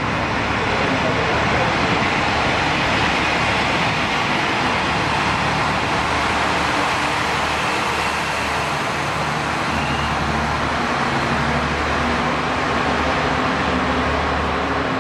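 JR Shikoku KiHa 185 diesel railcar hauling the Anpanman Torokko trolley car past at low speed: its diesel engine runs steadily under load over the noise of the wheels on the rails.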